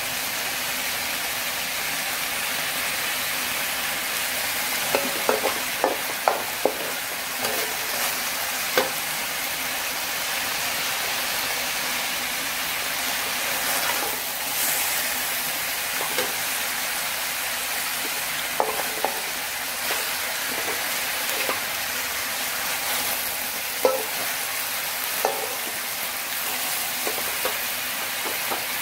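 Water spinach and chicken livers frying in a metal wok, a steady sizzle. A metal spatula clinks and scrapes against the pan now and then as the food is stirred, most often about five to nine seconds in.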